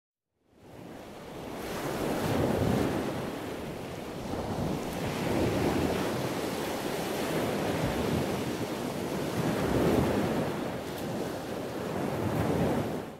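Sea surf washing on the shore, mixed with wind rumbling on the microphone. It fades in about half a second in, rises and falls in slow swells, and cuts off suddenly at the end.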